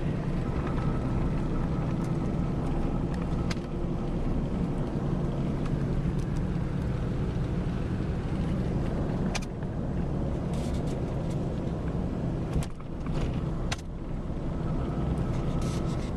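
A car engine and its road noise running steadily at a low pitch. A few short, sharp knocks cut through it: one about nine seconds in and two more a little later.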